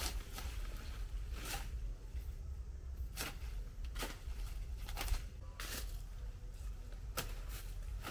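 Short, scattered rustles and clicks, irregular at about one a second, over a low steady rumble.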